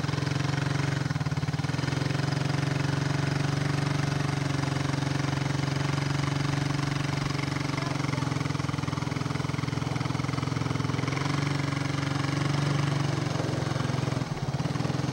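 ATV engine running steadily while carrying two riders, its pitch holding almost unchanged, with a brief dip near the end.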